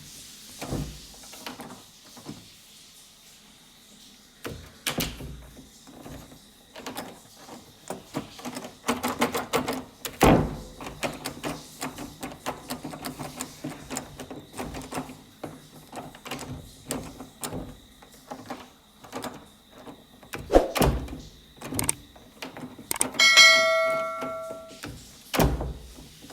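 Doors being worked: latches and handles clicking and rattling, with heavy door thuds about ten seconds in, around twenty seconds and near the end. A bell-like ding rings for about a second and a half shortly before the last thud.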